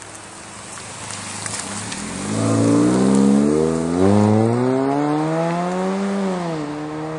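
Engine of a 2013 Chevrolet Sonic, a 1.8-litre four-cylinder with the muffler deleted, pulling away under acceleration. The exhaust note rises, dips once about four seconds in as it shifts up, rises again, then falls away as the throttle closes near the end.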